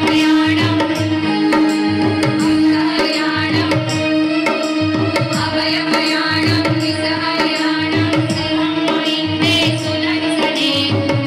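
Women's chorus singing a Jain devotional hymn in Prakrit in unison, over regular hand-drum beats and a steady held drone note.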